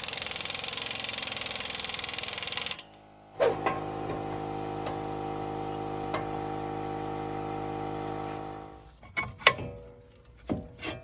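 Air impact wrench running for nearly three seconds, tightening the front axle nut on the hub. After a short break, a steady machine hum with several fixed tones runs for about five seconds, then a few metal clinks and knocks near the end.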